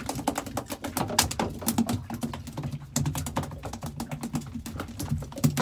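Freshly caught mackerel thrashing on a feather rig: rapid, irregular tapping and rattling as it is unhooked.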